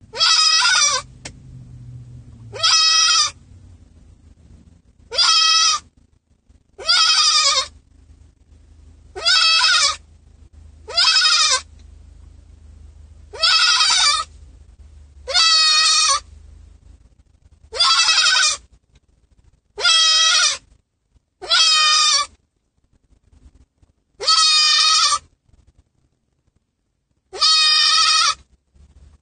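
A young white goat bleating loudly over and over, about thirteen calls each under a second long, roughly every two seconds: a goat left alone and crying for its absent owner.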